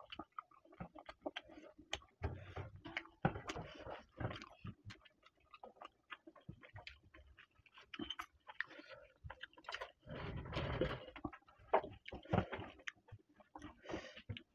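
Close-miked eating: wet chewing and lip-smacking of a mouthful of chicken curry and rice, a quick run of small smacks and clicks with a few louder stretches of chewing.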